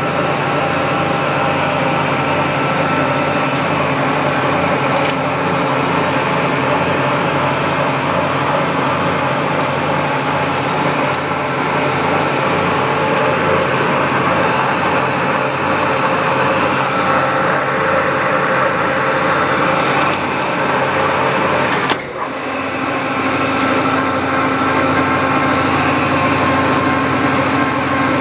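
LeBlond Regal 15"x30" gear-head engine lathe running under power, its geared headstock and spindle making a steady mechanical hum with several steady tones. About three-quarters of the way through, the sound dips for a moment, then runs on with a changed tone.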